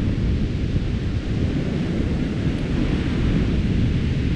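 Wind buffeting the microphone: a steady, gusty low rumble with a fainter hiss above it.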